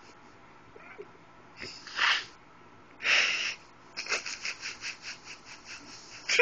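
Small dog sniffing and snorting at a plush toy: two short huffs, then a quick run of sniffs, about six a second, ending in a short sharp sound.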